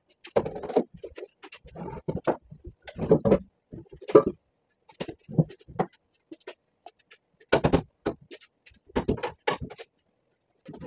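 Irregular knocks, clunks and scrapes as a pickup bed and the wooden 2x4 boards under it are shifted by hand.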